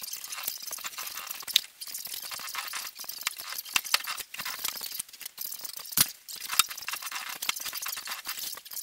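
Hand-cranked slip roll turning as a steel strip is rolled into a curve: a steady run of small metallic clicks and rattles from the rollers and gears, with a few sharper metal knocks, the loudest about six seconds in.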